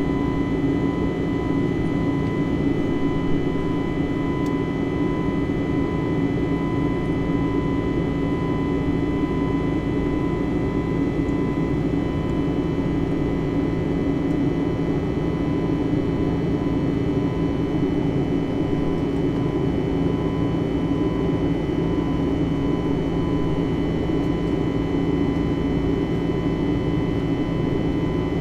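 Steady cabin noise of an Airbus A320 in flight, heard from inside the cabin: an even, low rush of jet engines and air with a few faint steady whines over it.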